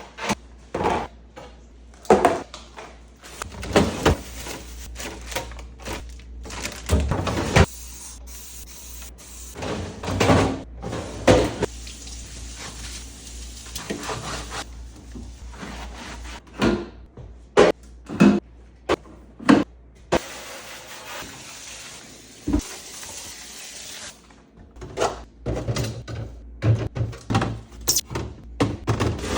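Containers, jars and shelves knocking and clattering as a fridge is emptied and cleaned, with long stretches of water running, as into a sink.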